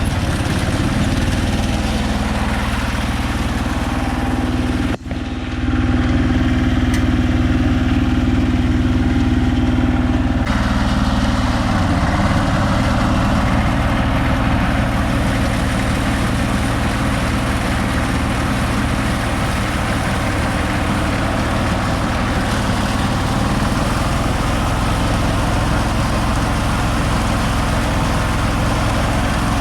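Konma MT-S411D harvester running, a steady engine-and-machinery drone with a sharp, brief drop about five seconds in and a shift in tone about ten seconds in.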